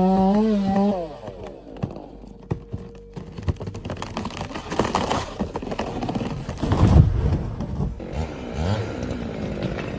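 A cut tree coming down: wood cracking and branches crashing, with the heaviest impact about seven seconds in.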